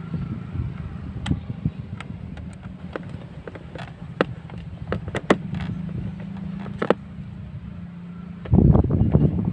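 A screwdriver and screw clicking and tapping against the plastic battery cover of a scooter's under-seat compartment as the cover is screwed back in: a scattering of sharp ticks over a steady low hum, with a louder rumbling noise near the end.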